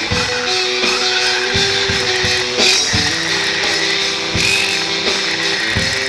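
Background music: a guitar-led track with a steady beat.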